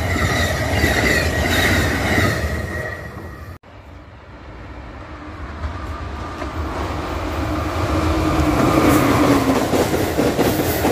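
Amtrak stainless-steel passenger cars rolling past on the rails, with steady wheel noise and a high steady ring. A sudden cut about a third of the way in, then another Amtrak train approaching at speed and passing close by, growing steadily louder.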